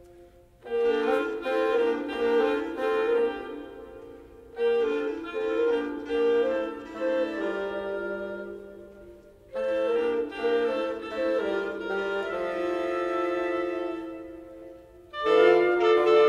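Woodwind quintet of flute, oboe, clarinet, French horn and bassoon playing classical chamber music. Phrases enter about a second in, again about four seconds later and again a few seconds after that, each starting with a quick run of short notes and fading away, before a louder entry near the end.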